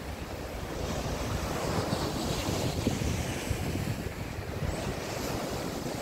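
Small sea waves breaking and washing up a sandy beach in a steady, continuous surf noise, with wind buffeting the microphone.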